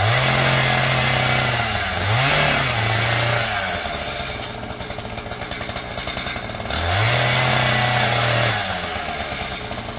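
Gas chainsaw revving to full throttle three times, held a second or two each time, and dropping back to idle in between.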